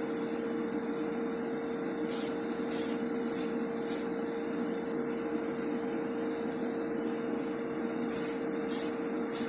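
Aerosol spray can hissing in short bursts as a light coat of paint goes on: four or five quick bursts about two seconds in, then three more near the end. A spray booth's extractor fan hums steadily underneath.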